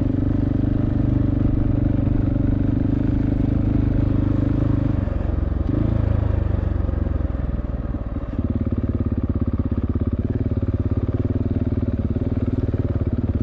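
Husqvarna 701 Enduro LR's single-cylinder engine running under light throttle as the motorcycle is ridden slowly over rough, rocky ground. The engine note holds steady, wavers about five seconds in, eases off briefly near eight seconds, then steadies again with an even pulse.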